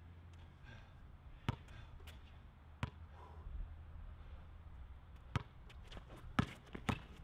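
A basketball bouncing on an outdoor hard court: about five separate sharp bounces at uneven spacing, over a low steady hum.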